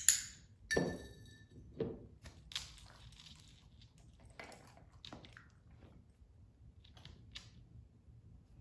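A series of short knocks and clicks at irregular intervals, loudest in the first second; the second knock has a brief metallic ring.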